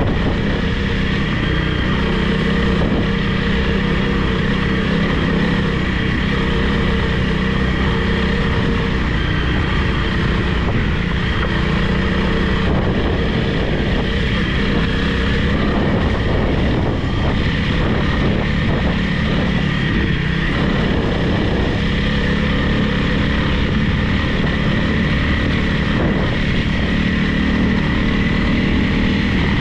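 Honda CRF300 Rally's single-cylinder engine running under way on a trail ride, a steady drone. It wavers and turns rougher for several seconds in the middle.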